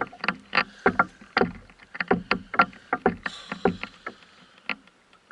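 Irregular knocks and clicks on and around a canoe while a fish is being played from it, several a second, thinning out and growing fainter toward the end.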